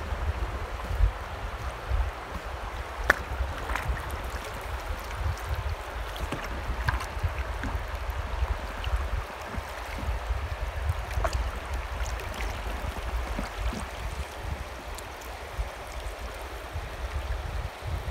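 River water rushing and lapping around a drifting raft, with wind buffeting the microphone in a low, gusting rumble. A few short, sharp slaps stand out, the clearest about three seconds in.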